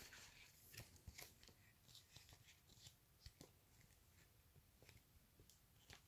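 Near silence, with faint scattered clicks and rustles from snack packaging being handled, a little busier in the first half.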